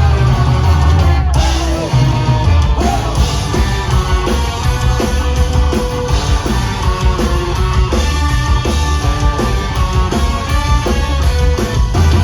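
Live rock band playing loudly, with guitars, bass and drums driving a steady beat.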